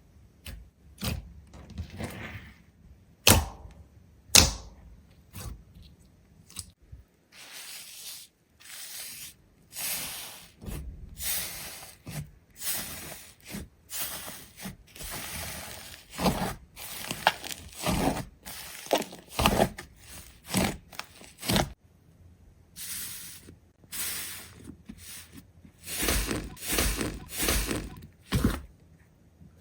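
An irregular series of sharp cracks, knocks and crunching noises, with two loud snaps a few seconds in and a quick run of heavier, deeper knocks near the end.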